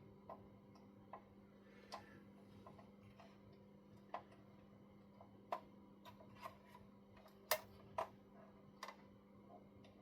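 Irregular small clicks and taps of an Allen key and small metal screws, washers and spacers being handled while fitting parts to a model truck, the two loudest close together near the end, over a faint steady hum.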